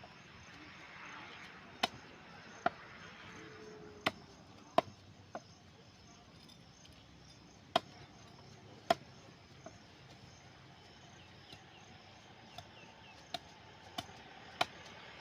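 About a dozen sharp knocks or clicks at irregular intervals, some with a brief ring, over a faint steady background.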